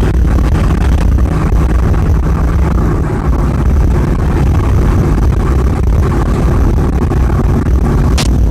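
A vehicle engine running steadily with a loud, low rumble, and one sharp click near the end.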